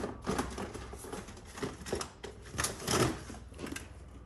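Irregular clicks, knocks and rustling of small objects being handled and moved about.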